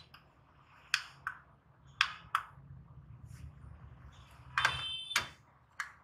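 Sharp plastic clicks, roughly in pairs, of the cancel button on a handheld wireless call-bell remote being pressed, then a brief cluster of clicks and clatter about four and a half seconds in.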